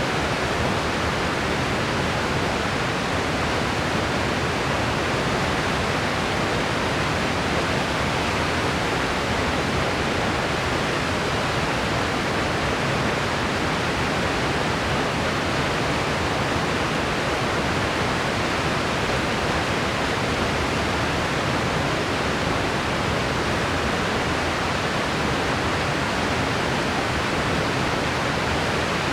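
Steady, unchanging noise-machine hiss (pink/white noise), an even rush with no breaks or events, softer in the highest pitches.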